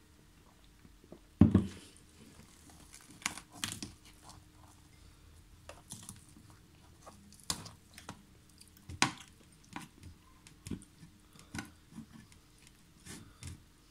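Close-miked eating sounds: chewing, and tandoori chicken being torn apart by hand, with scattered sharp clicks and taps. The loudest is a thump about a second and a half in.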